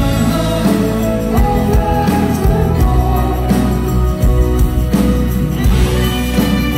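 Live band playing a slow song on keyboards, guitars and drums, with a man singing.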